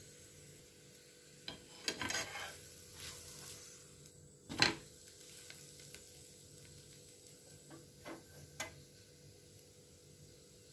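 Metal spatula scraping and tapping against a hot tawa under a stuffed radish paratha: a few short scrapes about two seconds in, one sharper knock near the middle, and a few light taps later, over a faint sizzle of oil on the griddle.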